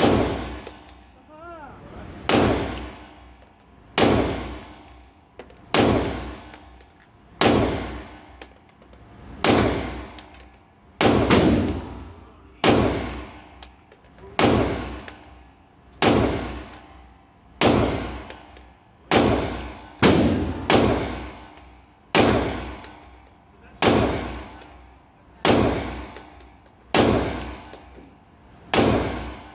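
A 9mm pistol fired slowly, one shot every one and a half to two seconds, about twenty shots in all. Each shot is followed by a long, echoing decay.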